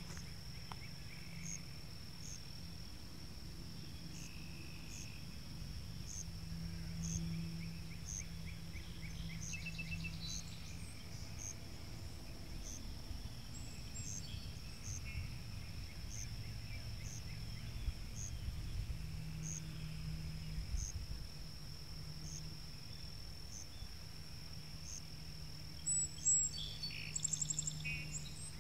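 Outdoor pond-side ambience: a steady high-pitched insect drone with a regular chirp about once a second, and birds calling on and off, with a louder burst of bird calls near the end. A low hum runs underneath.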